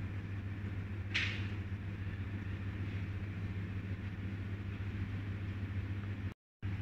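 Steady low mechanical hum over a noisy background, with a brief high squeak about a second in; the sound drops out completely for a moment near the end.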